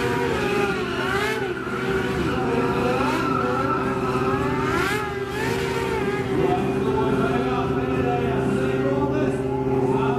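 Stunt motorcycle engine running and revving, with a few short bursts of tyre noise about a second in and again around five seconds, under a loudspeaker voice.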